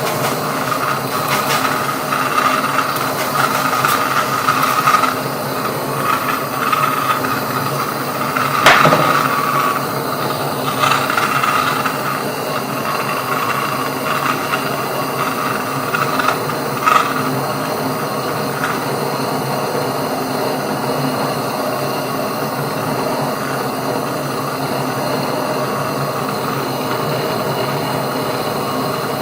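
A small power tool running steadily, with a few sharp knocks in the first half, the loudest a little before the middle.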